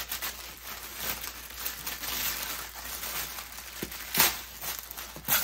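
Plastic wrapping and tissue paper crinkling and rustling as hands pull a tote bag free of its packaging, with two sharper, louder crackles near the end.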